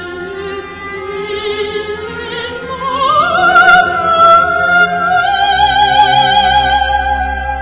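A soprano singing a Korean art song with orchestral accompaniment. Her voice glides up about three seconds in and grows louder, holding a long high note with wide vibrato.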